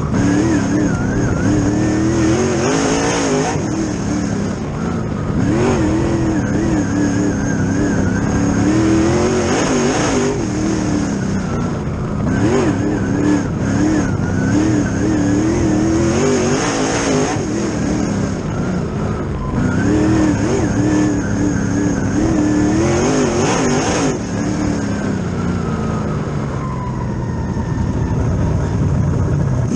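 Two-seat dirt late-model race car's engine heard from inside the cockpit under hard running. It revs up and backs off again every few seconds as the car powers down the straights and lifts into the turns. Over the last few seconds it drops to a lower, falling pitch as the car slows.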